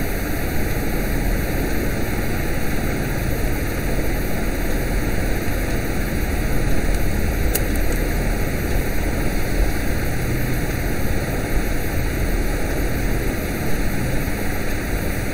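Steady, even rushing hiss of room and microphone background noise, with no distinct events apart from a single faint click about halfway through.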